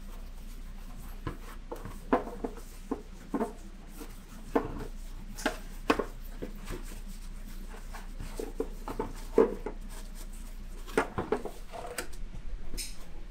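A damp scouring pad wiped and rubbed over a motorcycle helmet shell, with irregular soft knocks and scuffs as hands turn and grip the helmet. Near the end the pad is dipped into a tub of soapy water.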